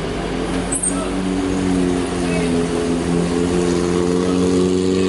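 Diesel engine of an Isuzu truck towing a long, heavy trailer, revving and rising steadily in pitch as it pulls slowly up a steep grade on a wet, slippery road.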